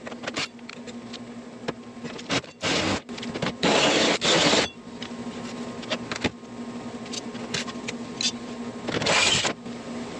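Cordless drill with a hole saw cutting through thin steel siding, heard as a few short, loud grinding bursts, the longest about a second, with clicks and a steady low hum between them.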